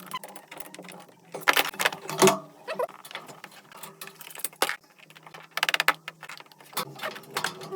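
Short bursts of rapid mechanical clicking and rattling, like metal tools and pipe fittings being handled and worked, over a faint steady hum.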